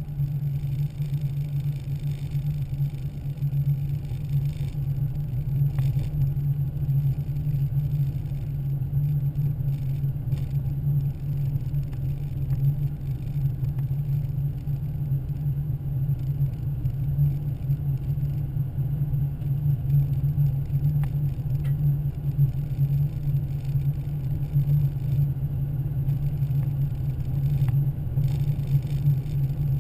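Car driving at highway speed, heard from inside the cabin: a steady low rumble of engine and tyres on the road.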